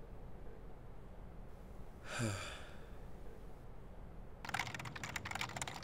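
A single sigh about two seconds in, a breathy exhale falling in pitch. From about four and a half seconds, fast typing on a beige Apple Macintosh keyboard, a rapid run of key clicks.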